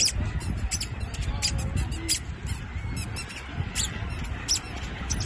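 A flock of gulls calling, many short, high squeaky calls overlapping in quick succession over a low rumble.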